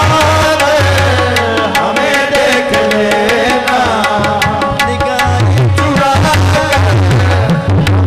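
Qawwali music: harmoniums playing a melody over held notes, with tabla drumming a quick, steady beat of about four strokes a second.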